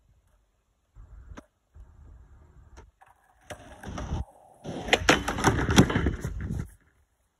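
Skateboard wheels rolling with a low rumble, then clattering onto a wooden pallet deck, with a run of sharp knocks of the board on the planks as the rider steps off.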